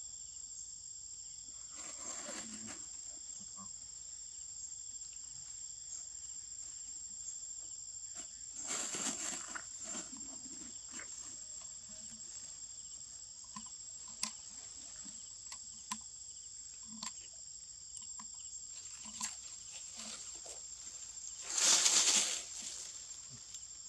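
Steady high-pitched insect chorus, with a thin unbroken whine on top. A few short rustling bursts cut through, about two seconds in, about nine seconds in, and loudest near the end.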